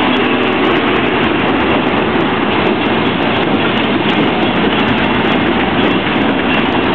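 Diesel locomotives of a freight train passing close by, loud and steady, engines running with the wheels clattering on the rails.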